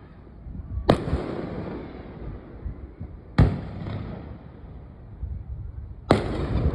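Aerial firework shells bursting: three sharp booms about two and a half seconds apart, each followed by a rolling echo.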